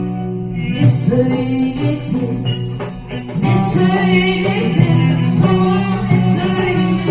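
Background music: a song with a singing voice over plucked string instruments.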